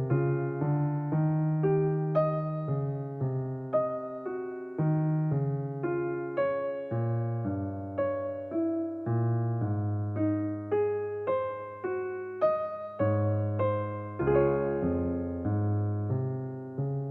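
Gentle solo piano music: a melody of struck notes, about two a second, over low sustained chords, closing on a held chord that starts to fade near the end.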